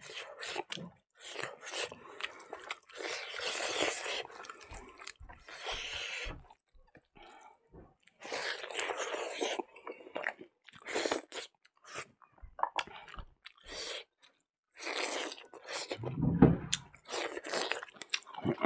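Close-miked chewing and mouth sounds of a man eating rice, dal and potato fry with his fingers, coming in irregular bursts, with a dull low thump near the end.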